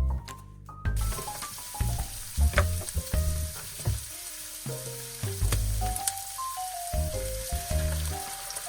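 Food sizzling in a hot frying pan, the steady sizzle starting about a second in. Background music with a melody and bass plays over it.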